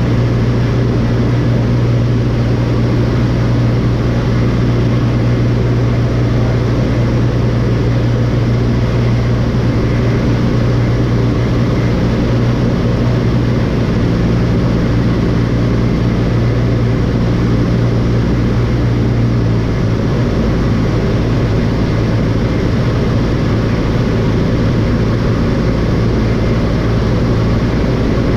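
Light airplane's piston engine and propeller running steadily, a loud even drone with a slight shift in tone about twenty seconds in.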